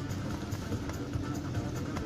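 Electronic music with a steady beat playing over the steady running noise of a car.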